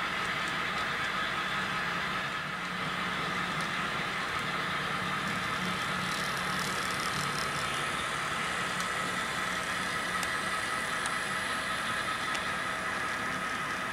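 Model BNSF diesel locomotive running steadily, its engine sound played through the model's small speaker, with faint ticks from the model train on the track.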